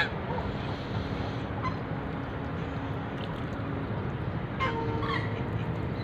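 Ducks and geese calling: a few short calls scattered through, over a steady background hiss.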